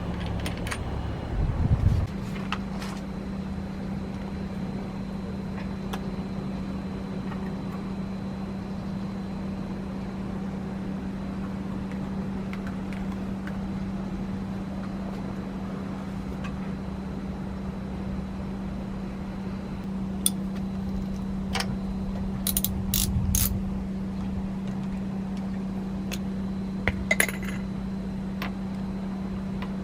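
Sparse metallic clicks and clinks of hand tools and small engine parts as a Yamaha RZ50 two-stroke's top end is worked on, including a quick run of three clicks about two-thirds of the way in, over a steady low hum.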